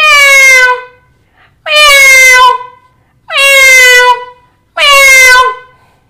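A man mimicking a cat with his voice: four loud meows, each sliding down in pitch, spaced about a second and a half apart.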